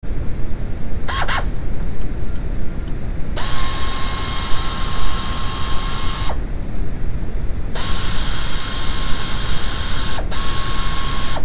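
A cordless power ratchet with a 5 mm Allen bit spins out bolts in bursts: a short blip about a second in, then two runs of a few seconds each with a steady motor whine that winds up at the start and down at the stop. Under it runs a steady rumbling masking noise.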